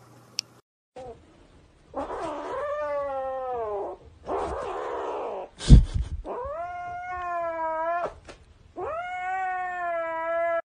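Kitten yowling: three long, drawn-out calls that fall in pitch, with a harsher, noisy stretch between the first two. A sharp knock comes about halfway through.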